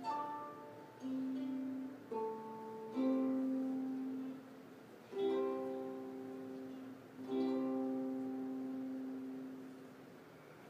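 Harp played slowly: about six plucked chords and notes, each ringing and dying away, the last one fading out.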